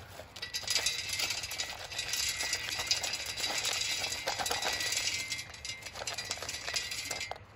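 Wood pellets pouring from a plastic cup into the steel pellet chute of a rocket stove: a continuous dense rattle of pellets sliding and clattering against the metal. It starts about half a second in and stops just before the end.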